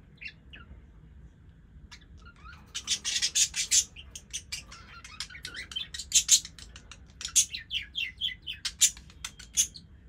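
Pet budgies chirping and chattering: a few faint chirps, then from about three seconds in a fast, dense run of sharp high chirps and clicks that goes on until near the end.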